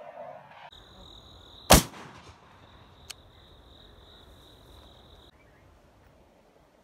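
A single shotgun shot, sharp and loud with a short tail, about two seconds in. Under it runs a steady high-pitched insect drone that stops about five seconds in.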